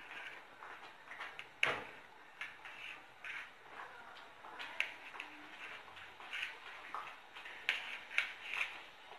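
Knife cutting chilled sablé dough logs on a stainless-steel tray: irregular soft clicks and scrapes as the blade meets the tray, with one sharper knock about a second and a half in and a quicker run of clicks near the end.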